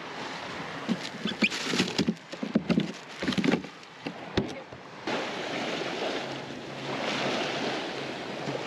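Irregular knocks, clicks and rustles of a fish being put into a plastic cooler. From about five seconds in, a steady wash of small waves lapping at the water's edge.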